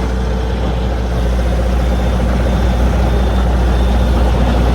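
Truck engine running, a steady low rumble, heard from inside the cab while driving.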